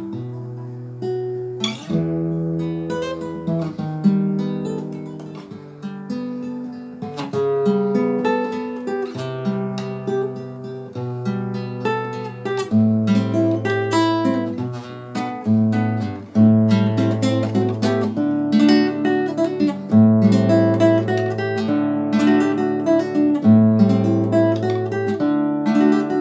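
Acoustic guitar playing an instrumental melody, plucked notes over repeated bass notes with occasional strums.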